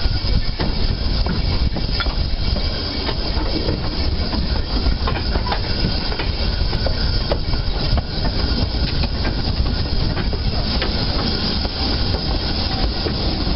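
Small narrow-gauge steam locomotive running along the line, heard from its cab: a steady rumble with scattered clicks of the wheels on the rails.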